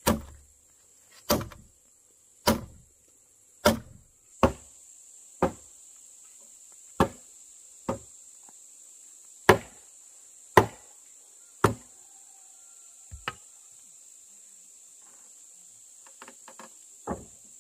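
A hammer or mallet striking a timber beam about a dozen times, roughly once a second, as the joints of a wooden house frame are knocked together; the blows stop after about twelve seconds, with a few lighter knocks near the end. A steady high insect buzz runs underneath.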